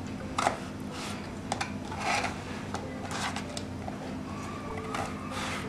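Kitchen knife cutting through a peeled raw potato, several short slicing strokes at roughly one a second, over a steady low hum.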